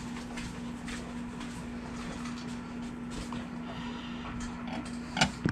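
Quiet room tone with a steady low hum, and one short knock near the end.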